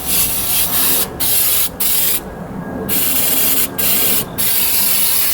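Aerosol can of engine degreaser spraying in about six hissing bursts with short gaps between them.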